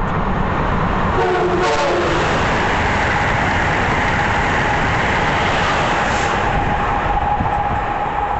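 Amtrak Acela high-speed train passing at speed: a loud, steady rush of wheels and air. A few short horn notes sound about a second in, and a steady high tone holds through the second half.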